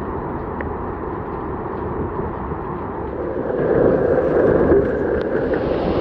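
Heavy hailstorm: hailstones and rain pelting paving stones in a dense, steady hiss that grows louder about three and a half seconds in.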